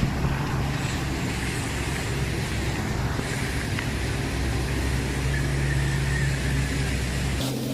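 Motor vehicle engine running steadily with road noise, heard while riding in it. Its low hum drops off abruptly near the end.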